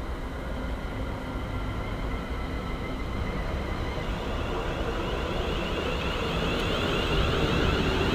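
London Midland Class 350 Desiro electric multiple unit approaching and running alongside the platform. Its rumble grows louder as it draws near, and a high whine strengthens in the second half.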